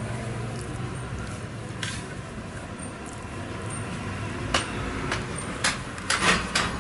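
Steady low background hum with a handful of short, sharp taps and clinks in the last two seconds.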